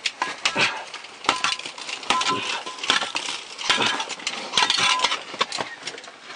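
Steel chisel chipping hard old cave ice: an irregular run of sharp metallic clinking strikes, two or three a second, with the scrape and crunch of ice breaking away.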